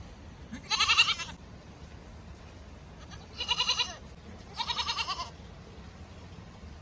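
A goat bleating loudly three times, each call about half a second long with a rapid quaver; the first call is the loudest.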